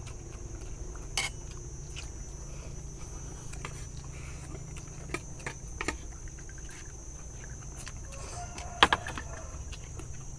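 Scattered clinks of spoons against plates during eating, the loudest a quick double clink near the end, over a steady low hum.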